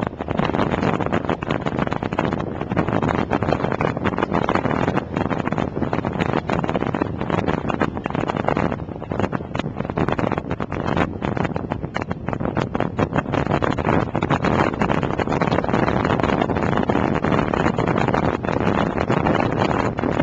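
Wind buffeting the microphone of a motorcycle at road speed: a loud, dense rushing noise with constant gusty flutter, riding engine and road noise underneath.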